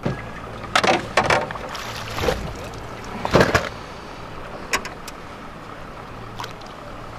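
A landed paddlefish being pulled aboard a boat: a handful of sharp splashes and knocks as the lively fish thrashes at the side. A steady low hum runs underneath.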